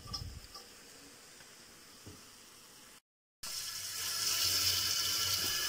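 Kitchen tap running into the sink, a steady rush of water that comes on about three and a half seconds in and grows fuller. Before it, a few faint knocks.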